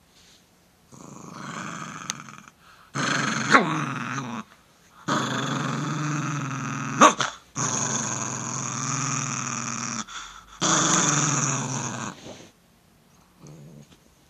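Italian greyhound growling through a tennis ball held in its mouth: about five long, low growls, the first quieter, with two brief sharp sounds breaking into them. A warning growl at a finger held toward it while it guards the ball.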